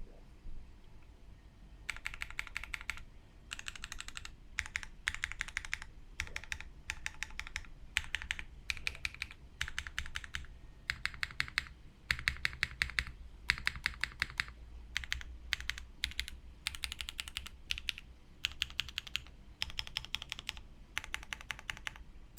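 Typing on a Keycult No. 2/65 gasket-mount mechanical keyboard with an aluminium plate, no foam, Alexotos switches and GMK keycaps: rapid keystrokes in bursts of about a second, with short pauses between, starting about two seconds in.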